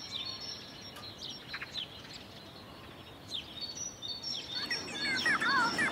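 Bird chirps over a soft outdoor ambience bed, with short high calls scattered throughout. About four and a half seconds in, a louder run of repeated warbling calls begins.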